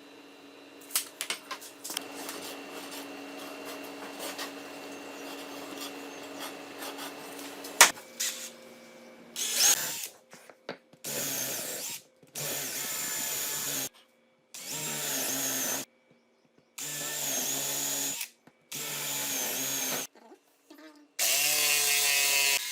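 Electric drill switched on and off repeatedly: about seven short runs of one to two seconds each, the pitch dipping during some runs as if under load. Before the runs there is a faint steady hum with scattered clicks and knocks.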